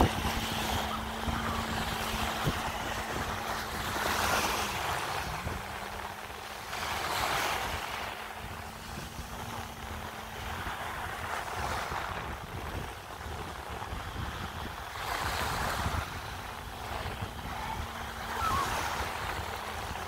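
Sea waves washing in swells every few seconds, with wind buffeting the microphone. Under them a jet ski's engine runs as a faint steady drone, its pitch dropping slightly about five seconds in.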